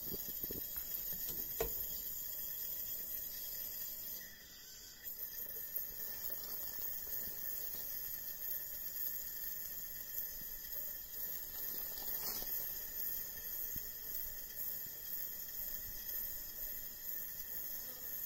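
Coleman 424 dual-fuel camp stove burner hissing steadily under pressure, its flame still tall and yellow, as while the generator is warming up after lighting. A single knock sounds about a second and a half in.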